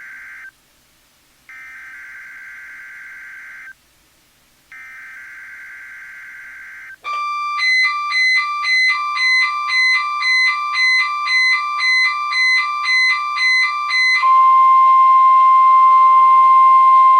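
NOAA Weather Radio weekly test signal through an Emerson CKW2000 weather radio: the end of one and two more short buzzy bursts of SAME header data, then the radio's alert beeping in a rapid pulsing pattern about twice a second. About 14 seconds in it gives way to the steady, louder single-pitch 1050 Hz warning alarm tone.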